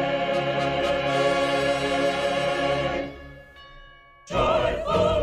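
Choir and orchestra holding a sung chord that fades away about three seconds in. A few soft high tones hang in the short hush, then the choir and orchestra come back in loudly just after four seconds.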